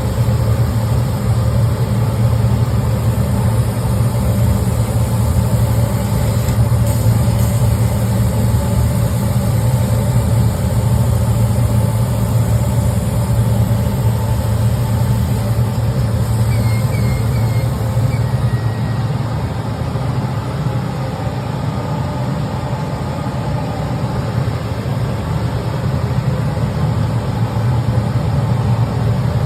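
Large laser cutting and engraving machine running: a steady, even machine hum. A few faint high chirps come a little past halfway.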